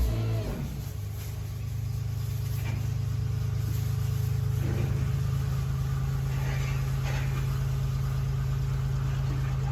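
Engine running steadily at a low, even pitch, with a few faint knocks.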